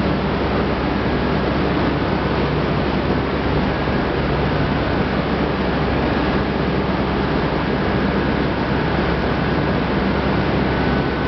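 Steady, loud running noise of corn-starch milling and germ-separation machinery, with a low hum and a faint thin high whine.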